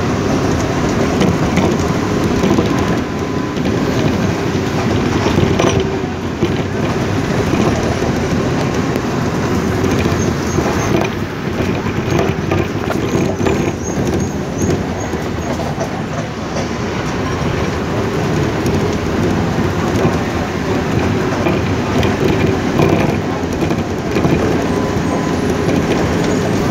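Steady running noise of a moving vehicle heard from inside: a low rumble with continuous small rattles and knocks, unbroken throughout.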